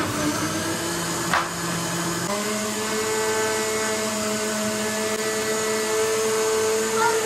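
Countertop blender running on its lowest speed, mixing a liquid base of condensed milk, cream and milk. There is a brief tick about a second and a half in, and the motor's whine steps up in pitch a little after two seconds, then holds steady.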